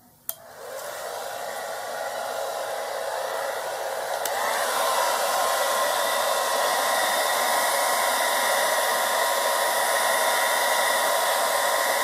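Hand-held hair dryer switched on with a click and blowing, with a second click about four seconds in where it gets louder and a steady whine joins the rush of air, then runs steadily.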